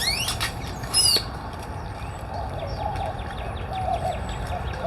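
Birds at a feeding station. Wings flutter at the start and small birds chirp throughout, with one loud, high, ringing call about a second in. Low cooing of doves comes in during the second half.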